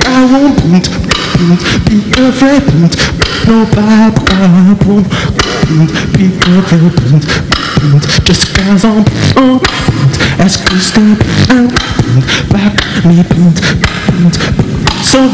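Solo beatboxing into a handheld microphone: quick mouth-made kick, snare and hi-hat strokes in a steady groove, with a low hummed bass line stepping up and down underneath at the same time.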